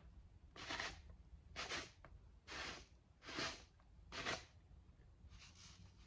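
Desiccant beads shifting inside a clear plastic filter housing as it is rocked in the hands: about six faint swishes, roughly one a second.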